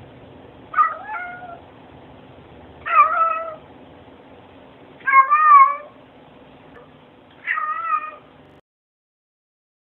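A domestic cat meowing four times, about two seconds apart. Each meow is a short call that bends in pitch, and the third is the longest.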